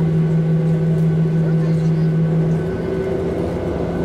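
Inside the cabin of a Boeing 737-800 taxiing: the steady drone of its CFM56 engines at idle together with the cabin air system, with several steady hums. A strong low hum cuts out about two-thirds of the way through and the sound drops a little.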